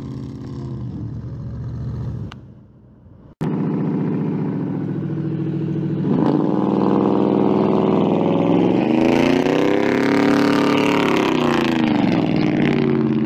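Ford F-150 pickup engine revving as the truck drives and turns on beach sand. It revs up about two-thirds of the way through, holds, and drops back near the end. Early on the sound dips and comes back in with a sharp click about three seconds in.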